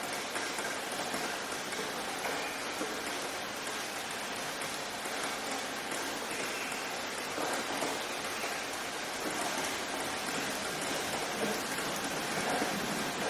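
Steady rain falling and pattering on a surface, an even hiss of many drops with no breaks.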